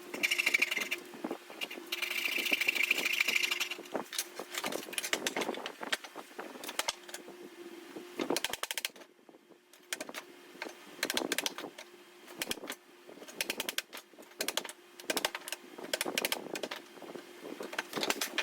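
Hand tools cutting dovetail sockets in 1x4 boards: a short spell of saw rasping near the start, then many sharp, irregular taps and knocks.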